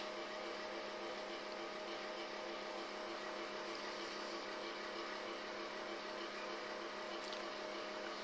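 Faint steady hum under an even hiss: room tone with a constant electrical or appliance drone, and a faint click about seven seconds in.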